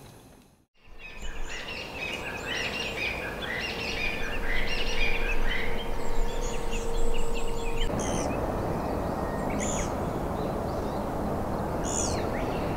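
Small songbirds chirping and singing in a dense chorus of many short calls, which thins to scattered calls after about eight seconds, over a steady background hiss. It begins with a brief near-silent gap.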